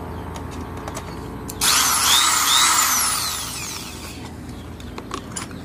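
Corded Makita-branded electric drill test-run on its first plug-in: the motor starts suddenly about a second and a half in, whines up in pitch, then winds down over about two seconds.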